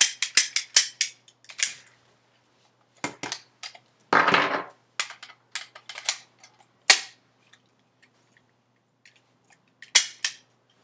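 Toy cap-gun revolver firing a rapid string of sharp cracks, about five a second, for the first second, then scattered cracks and clicks as it is handled, with a short noisy burst about four seconds in, and two or three more cracks near the end.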